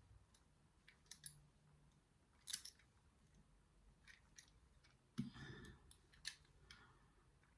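Faint, scattered clicks and light metallic scrapes of a small lever drawer lock and tools being handled as the lock is taken apart, with two louder clicks about two and a half and five seconds in.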